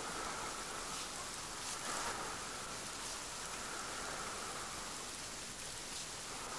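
Steady rain falling, an even hiss, with a faint high tone that swells in and out behind it.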